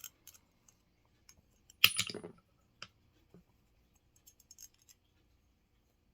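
Small metal gun-cleaning tools being handled while the wrong-size jag is swapped: scattered light clicks, with one louder sharp clink that rings briefly about two seconds in.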